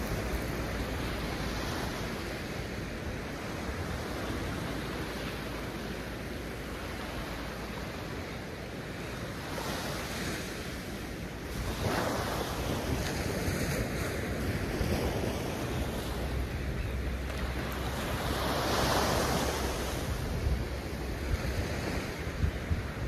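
Ocean surf breaking and washing up the beach, with louder surges of wash about halfway through and again near the end. Wind is buffeting the microphone, with a low rumble underneath.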